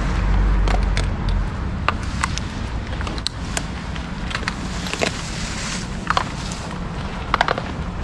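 Wind rumbling on the microphone, heaviest in the first second and a half, with scattered light clicks and knocks, a small cluster of them about seven and a half seconds in.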